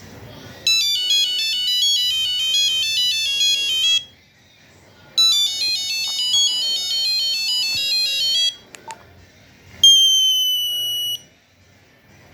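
Nokia 2100 mobile phone playing a monophonic ringtone: a quick, beeping melody of about three seconds, played twice with a short pause between. Then a click and a single held beep just over a second long, drifting slightly down in pitch, as the next tone starts.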